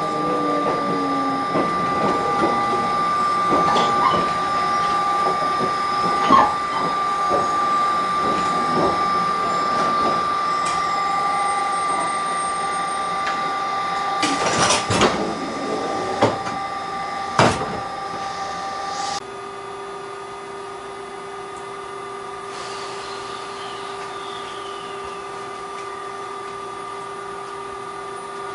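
Inside a standing electric express train: a steady high whine from its onboard electrical equipment, with scattered knocks and clicks. About two-thirds of the way through it switches abruptly to a quieter, lower steady hum.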